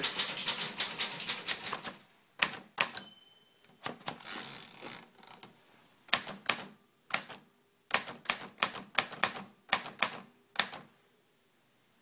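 Smith Corona Skywriter manual typewriter being typed on: the typebars clack against the platen in a fast run for the first two seconds, then in single strokes and short runs, stopping about eleven seconds in.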